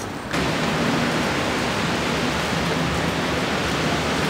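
Loud steady rushing noise with a faint low hum underneath, cutting in suddenly about a third of a second in and then holding level.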